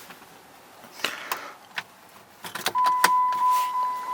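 Clicks and knocks of someone handling a car's interior, then, about two and a half seconds in, a 2006 Chrysler 300's electronic warning chime starts as a steady, high, pure tone and keeps sounding.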